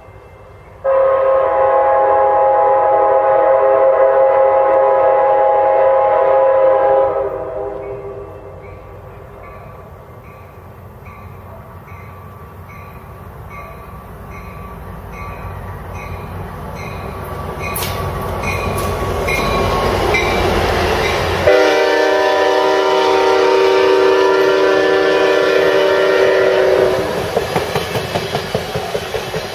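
An Amtrak passenger train's multi-chime locomotive horn sounds two long blasts, the first about six seconds long and the second about five. Between them a bell dings steadily about once a second while the train's rumble grows louder as it approaches. Near the end the wheels clickety-clack as the bilevel cars pass.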